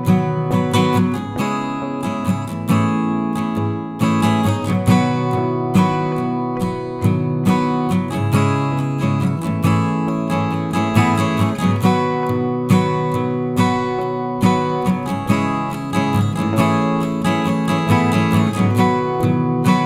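Instrumental background music led by a strummed acoustic guitar, with a steady rhythm of strums throughout.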